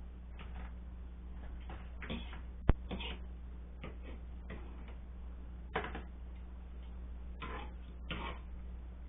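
A fork and knife working cooked pork: scattered short scrapes in a slow cooker's crock and on a cutting board, with two sharp clicks, the loudest a little under three seconds in, over a steady low hum.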